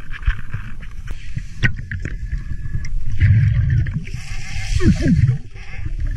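Underwater sound of a scuba diver breathing through a regulator: rumbling, gurgling exhaled bubbles that swell twice, with a hiss between them and small clicks and scrapes of gloved hands in gravel.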